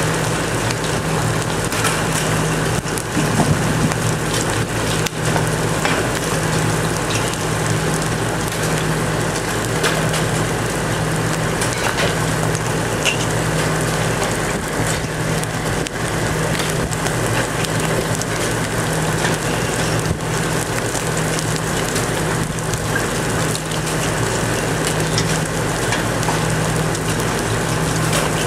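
Heavy downpour of rain mixed with large, baseball-sized hail: a dense, steady hiss of rain with scattered sharp knocks of hailstones striking the ground and hard surfaces. A low hum runs underneath.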